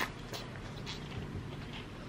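Quiet sipping through a drinking straw, with a few faint clicks.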